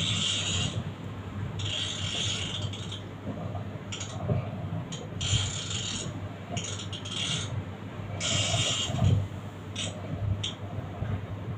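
Fishing reel being cranked in short, irregular bursts of winding while a fish pulls on the line, the gears giving a rasping, grinding whirr with each turn.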